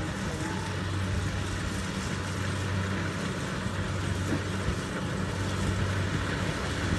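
Rice harvester's engine running steadily with a constant low hum.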